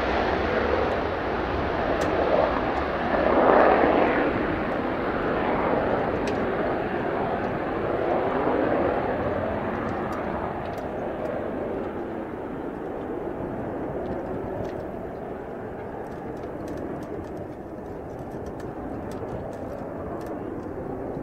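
Mitsubishi F-2's single General Electric F110 turbofan at full afterburner as the fighter climbs away after takeoff. It is a heavy jet roar that swells about three to four seconds in, then slowly fades and loses its high end as the jet recedes into the cloud.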